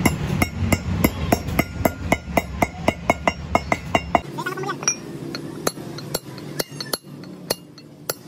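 Steel hammer blows ringing on the steel bearing race in an Isuzu Panther front wheel hub, about four strikes a second, driving the race into the hub. About four seconds in the blows turn slower and lighter.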